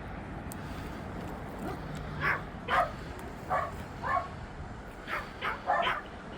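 A dog barking: about seven short barks in two bursts, starting about two seconds in.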